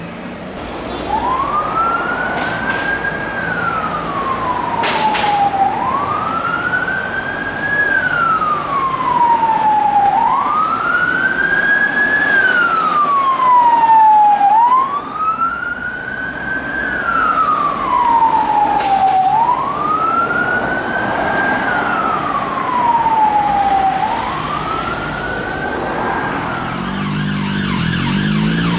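Siren of a Mercedes-Benz Sprinter police van on wail: the pitch climbs quickly, then slides slowly back down, repeating about every four and a half seconds, over traffic noise.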